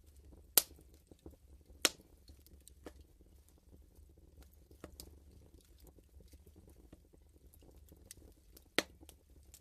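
Wood fire crackling in a fireplace: a steady run of small snaps and ticks, with three sharp, loud pops, about half a second in, near two seconds and near the end.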